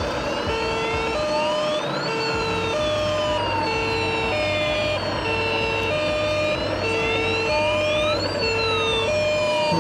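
Two sirens sound together from the model fire trucks' sound modules: an alternating two-tone fire-brigade siren switching pitch about every half second, and a slow rising and falling wail. A steady low hum comes in about two seconds in.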